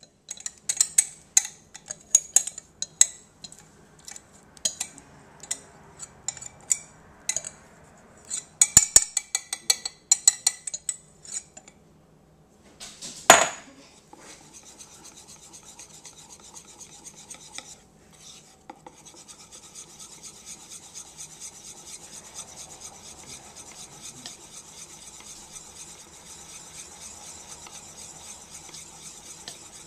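Wire whisk beating tempura batter in a plastic bowl. It starts as quick, irregular clicks of the whisk against the bowl, then comes a single sharp knock a little before halfway. After that it settles into a steady scraping swish of whisking through the batter.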